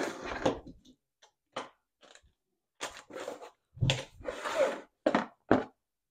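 Cardboard box and handheld-radio parts being handled and set down on a wooden table: a string of short knocks and brief scrapes and rustles.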